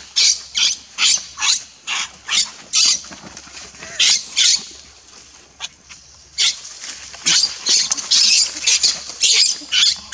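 Infant macaque screaming in short, shrill squeals, two to three a second, in distress while an adult grips and handles it. The squeals stop for about two seconds midway, then come thick again.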